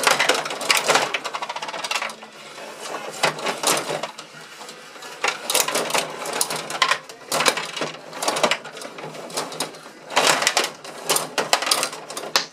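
Rod-operated table hockey game in fast play: rods pushed and spun and plastic players and puck clattering, heard as bursts of rapid clicking with short quieter gaps between.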